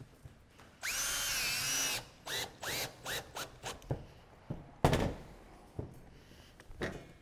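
Cordless drill driving a roofing screw into a corrugated steel roof sheet: one sustained run of about a second whose pitch rises, then sags under load, followed by several short trigger bursts that spin the motor up and down. Then a few sharp knocks, the loudest about five seconds in.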